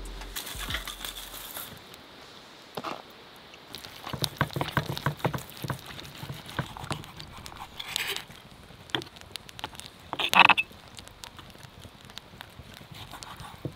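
Steel knife and fork cutting a grilled tomahawk steak on a wooden cutting board: a run of small clicks and scrapes, with one sharp clink about ten seconds in.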